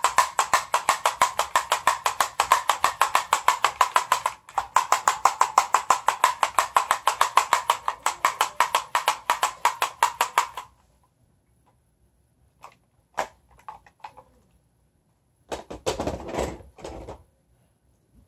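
Fast, even clicking, many clicks a second, breaking off for a moment near the start and stopping about ten and a half seconds in. A few scattered knocks follow, then a short scuffling noise near the end.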